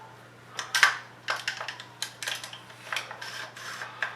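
Metal parts of a Stoeger M3000 shotgun clicking and scraping as they are slid back together by hand: an uneven run of sharp clicks, the loudest about a second in.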